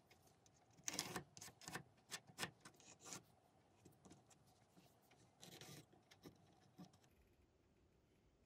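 Faint light clicks and taps, a quick irregular run of them in the first few seconds, then a brief rustle and two more single clicks.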